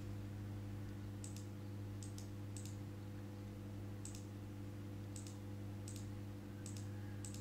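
Computer mouse clicking while a part is placed in a schematic program: sharp clicks about once a second, some in quick pairs. Under them runs a steady low electrical hum.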